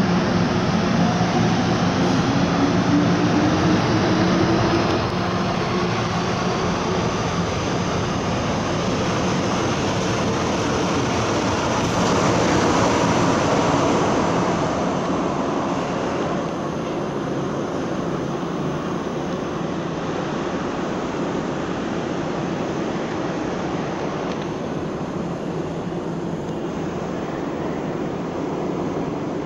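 MTR metro train running in the tunnel behind the platform screen doors, a motor whine rising in pitch over the first few seconds over a steady rumble that slowly fades.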